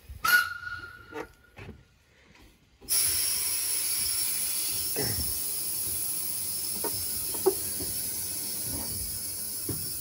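Steam locomotive, a Cockerill vertical-boilered shunter, hissing steam: a steady loud hiss starts suddenly about three seconds in as the engine is got going, with a few faint knocks under it. Just before, a single knock with a brief ringing tone.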